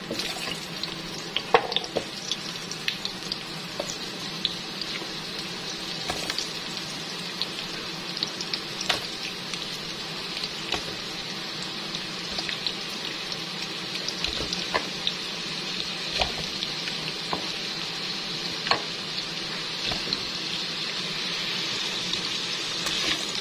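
Crinkle-cut carrot and potato slices sizzling in hot oil in a frying pan as they brown, with scattered pops and clicks as pieces are dropped in and the oil spits. The sizzle grows a little louder near the end as the pan fills.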